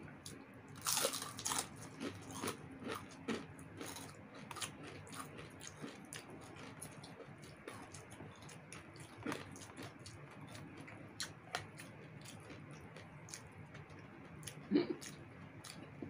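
Crispy fried chicken skin being bitten and chewed close to the microphone: sharp crunches, loudest about a second in, then a scatter of smaller crunches and chewing.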